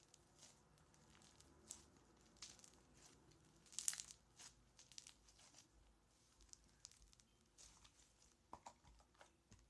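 Faint scattered crackles and pops of styrofoam-bead slime being squeezed and kneaded in the hands, the loudest about four seconds in.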